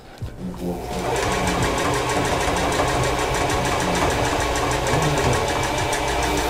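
Singer electric sewing machine stitching fabric: it starts about half a second in, quickly comes up to speed, and then runs at a steady fast stitch.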